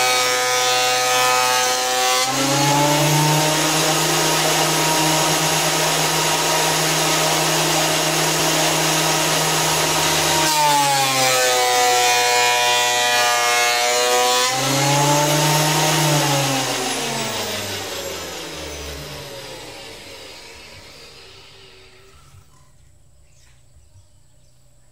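Fujiyama electric hand planer running: the motor whine drops in pitch under a rough shaving noise for about eight seconds as it cuts wood, picks back up to full speed, then is switched off and winds down, fading over about six seconds.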